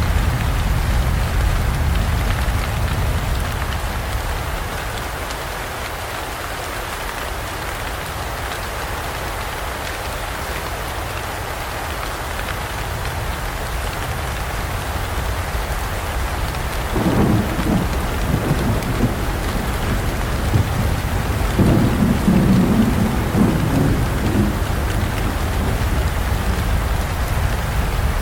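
Heavy rain falling steadily, with two rolls of thunder in the latter half, the second one louder and lasting a few seconds.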